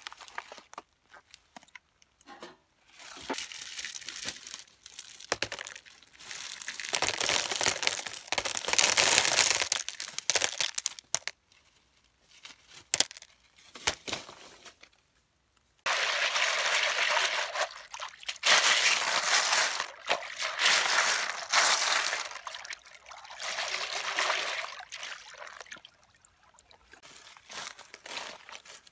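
Blood cockles poured and jostled in a plastic basket: many shells clattering against each other and the plastic in two long spells, with single clicks between them.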